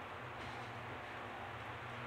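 Faint steady hiss with a low hum from a pot of taro stems cooking on a gas stove burner.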